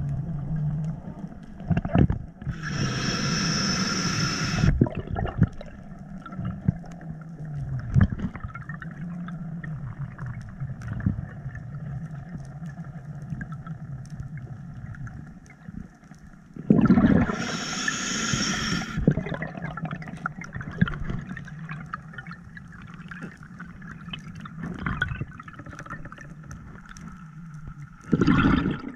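Underwater sound picked up by a diver's camera housing: muffled water noise with a steady low hum, broken by loud rushing hisses about three seconds in, again around seventeen seconds, and briefly near the end.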